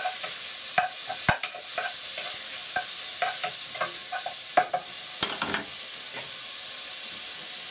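Chopped bacon sizzling as it fries in a non-stick pot, with a wooden spoon stirring it and knocking against the pot several times. The knocks stop about five and a half seconds in, leaving the steady sizzle.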